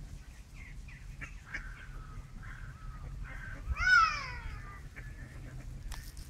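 Mallard ducks quacking in short repeated calls, with one louder drawn-out cry falling in pitch about four seconds in.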